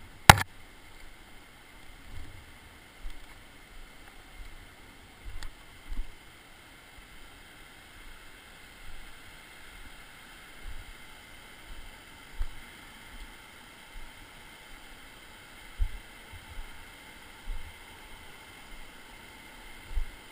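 Footsteps on a rocky trail thudding irregularly about once a second over a steady background hiss, with one sharp knock just after the start.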